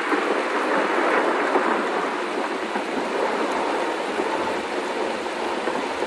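Heavy rain pouring steadily in a thunderstorm, an even hiss with no sharp thunderclap.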